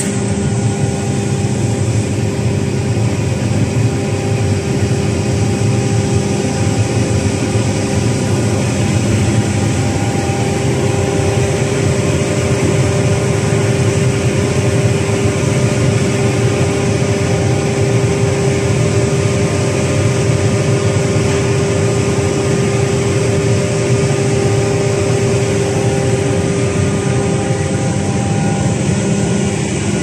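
Water-drop type wood sawdust hammer mill running under load with its discharge belt conveyor: a loud, even machine noise with a steady hum.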